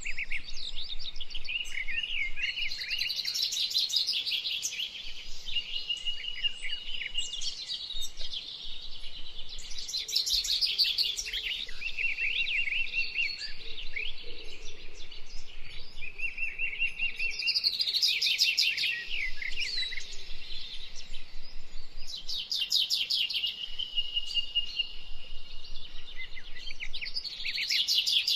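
Songbirds singing: bursts of quick chirps and trills that come back every few seconds.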